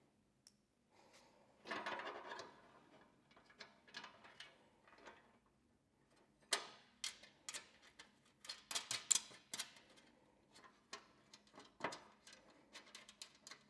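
Irregular sharp clicks and light knocks of metal floorboard plates, brackets and a hand tool being handled and fastened, with a denser run of clicks in the middle.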